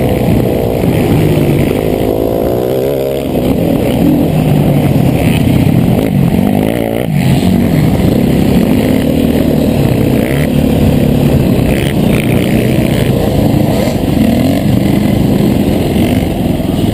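2013 KTM 500 EXC's single-cylinder four-stroke engine running hard on the open track, its pitch rising and falling as the throttle is opened and rolled off through the turns.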